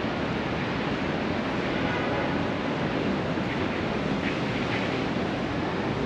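Steady, even rushing noise of an outdoor city scene, with no single event standing out.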